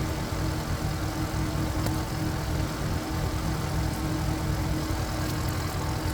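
Walking tractor's single-cylinder diesel engine running steadily at a constant speed, with a low, even rumble.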